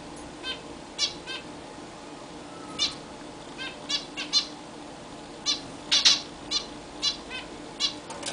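Zebra finches calling: a series of short, sharp calls, about sixteen in all, spaced irregularly, sometimes two or three close together.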